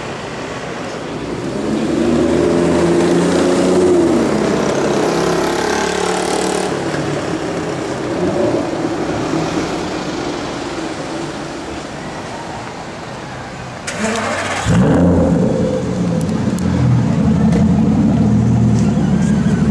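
Aston Martin DBS 5.9-litre V12 accelerating away with its exhaust note rising over the first few seconds. About fourteen seconds in, a second DBS is heard close to its tailpipes, starting up with a sudden burst and a rising rev, then settling to a steady idle.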